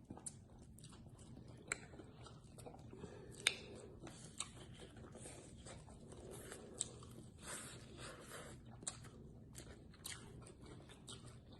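Faint chewing of deep-fried, Hot Cheetos-crusted frog legs, with scattered small crisp crunches and mouth clicks.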